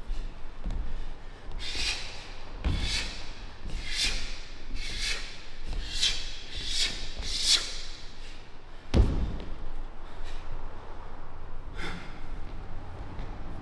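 Dull thuds and a run of short, sharp swishing hisses, about one a second, followed by a single louder thud about nine seconds in.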